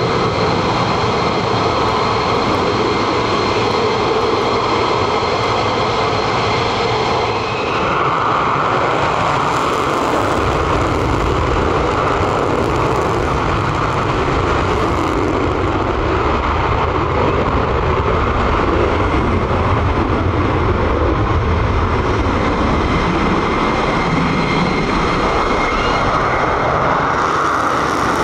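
F-15E Strike Eagle jet engines running: a steady noise with a high whine at first. From about eight seconds in it turns louder and deeper as an F-15E takes off on afterburner and climbs out, and the sound holds steady to the end.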